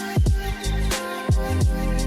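Background music with a steady beat: deep bass drum hits and held notes.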